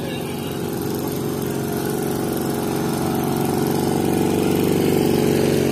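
A small engine running steadily at a constant speed, growing louder over the first few seconds.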